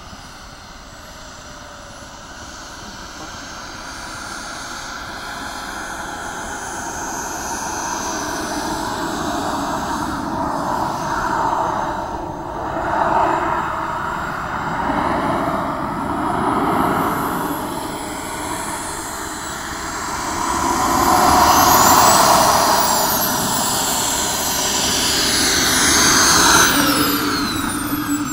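Model Grumman F9F Cougar jet's turbine running as the model rolls and taxis along the runway toward the listener, getting steadily louder. In the last several seconds its high whine slides up and down in pitch, then drops near the end.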